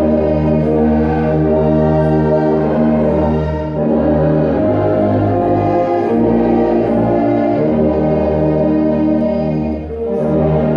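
Tuba playing long held low notes, with other pitched parts sounding together as chords that change every second or two. The sound dips briefly twice, at about four seconds in and near the end, where the notes change.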